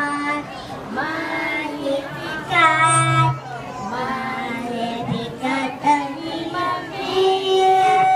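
Young children singing a song together, one girl singing into a handheld microphone, ending on a long held note.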